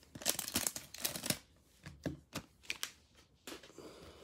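Plastic cello-pack wrapper of trading cards crinkling and crackling in the hands in irregular bursts, loudest in the first second and a half.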